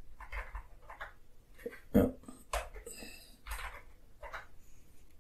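Keystrokes on a Sinclair QL keyboard: soft, irregular key clicks as commands are typed.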